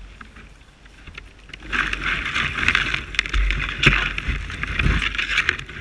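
A snow kayak pushing through snow-laden brush: twigs and branches scraping, rustling and snapping against the hull and the bow-mounted camera. It starts quietly and turns into a loud, continuous scraping about two seconds in, with several sharp cracks.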